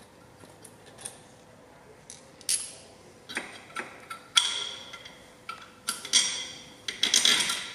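A run of sharp metallic clinks and knocks, some ringing briefly, from metal parts and tools being handled in a car engine bay; the first comes about two and a half seconds in, the loudest about halfway, and a cluster near the end.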